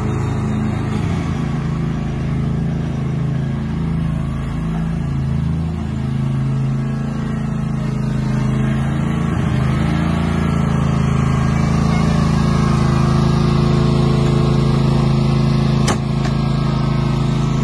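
Stiga Estate Special ride-on lawn tractor's Honda GCV530 V-twin engine running steadily while mowing grass, its hum wavering slightly in pitch.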